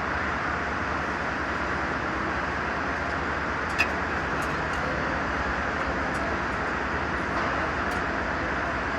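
Mercedes-Benz truck's diesel engine running steadily, with a single short click about four seconds in.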